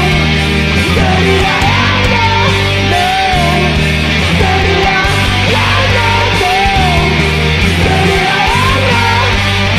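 Hard rock band recording: distorted electric guitars over held bass notes, with a bending lead guitar phrase repeating about every two and a half seconds and no vocals.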